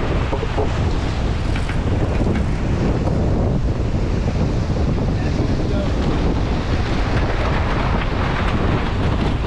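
Steady wind buffeting the microphone over the rush of water along the hull of a J/111 sailboat sailing at about 11 mph.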